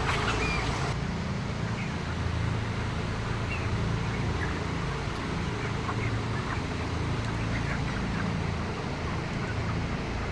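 A flock of broiler chickens in a poultry house peeping and clucking, with scattered short calls over a steady low machinery hum. A high hiss stops about a second in.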